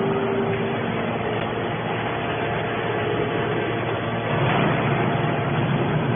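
Mini hydraulic can baler's motor and pump running steadily: a continuous machine noise with a few steady hum tones that change partway through.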